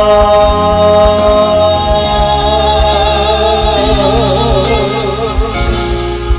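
A singer's long held note over a pop ballad backing track, wavering with vibrato in its second half and ending about five and a half seconds in while the accompaniment carries on.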